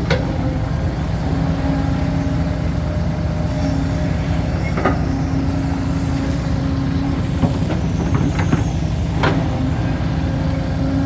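Heavy diesel construction machinery running steadily, with a few sharp knocks of metal or soil striking during the work.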